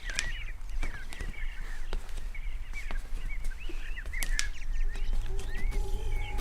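Birds chirping in short, repeated rising and falling calls, with scattered clicks. About five seconds in, a low, steady musical drone fades in underneath.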